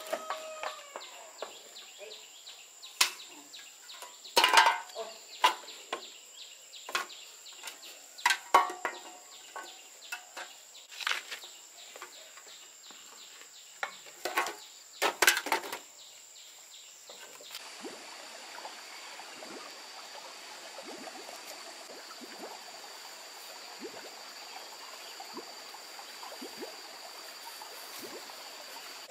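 Sharp, scattered clacks and knocks of dry bamboo poles and sticks being handled and knocked together, with shuffling sandal steps. After about 17 s this gives way to a steady outdoor hiss with a thin, high, steady tone.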